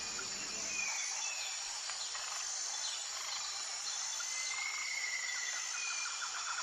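Steady, high insect chorus, with a few short bird whistles over it and a pulsing call coming in near the end.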